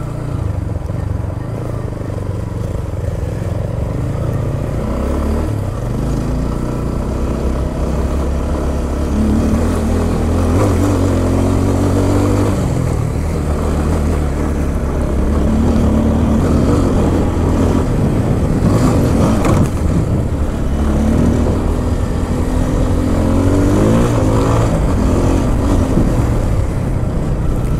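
Motorcycle engine running under load, its revs climbing and dropping back several times as the rider accelerates.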